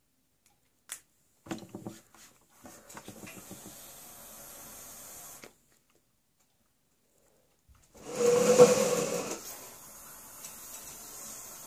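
Mechanical mod vape firing a dual nano-coil build at 0.47 ohms on a Nimbus atomizer: a drag of about three seconds with airflow hiss and light coil crackle, then a loud breathy exhale of the vapour about eight seconds in, followed by another drag with steady hiss.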